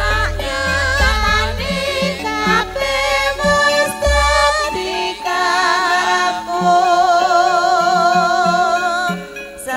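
A campursari band playing a Javanese langgam song, with female sinden singers holding long, wavering notes with vibrato over the band's bass and instruments.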